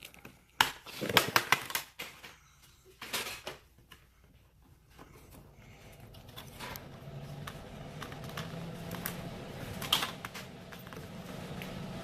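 Plastic bezel clips clicking and snapping as a screen's plastic border is pried loose by hand with a plastic pry tool: a quick cluster of sharp clicks about a second in, another about three seconds in, then scattered clicks. A low hum builds up through the second half.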